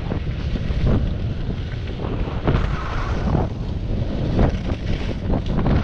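Wind buffeting a GoPro's microphone during a downhill ski run, a steady low rumble. Over it, the hiss of skis scraping across packed snow swells and fades with each turn.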